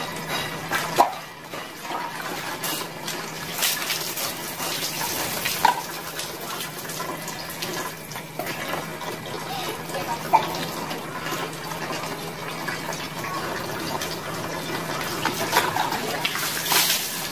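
Bath water being scooped from a plastic tub with a dipper and poured over a person, splashing down. There are scattered splashes throughout and a loud pour-and-splash near the end.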